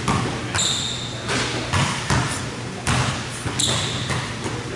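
A basketball bouncing on a hardwood gym court, a handful of irregular thumps, with two short high squeaks of sneakers on the floor, about half a second in and again about three-quarters of the way through.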